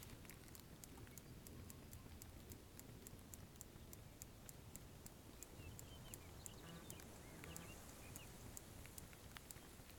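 Faint, even ticking of a fishing reel being cranked to retrieve the lure, about three to four clicks a second. A few faint bird chirps come in around the middle.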